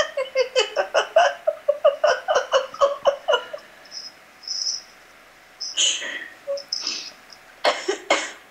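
A woman laughing hard in a quick run of ha-ha bursts, about four or five a second, which fades out after about three and a half seconds. Two short breathy sounds come later, near six and eight seconds in.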